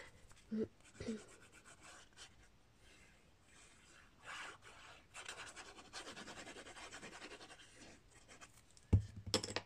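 Nozzle of a liquid glue bottle drawn across cardstock in wavy lines, a faint scratchy rubbing as the glue is squeezed out. A short knock near the end.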